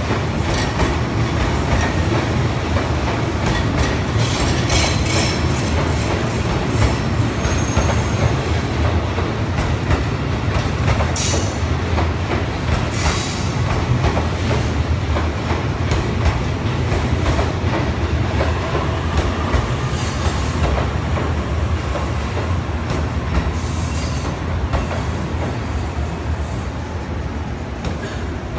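Green-and-orange-striped JR East commuter electric train moving along a station platform: a steady low rumble of steel wheels on the rails with clickety-clack, and a few brief high wheel squeals. The sound eases a little near the end.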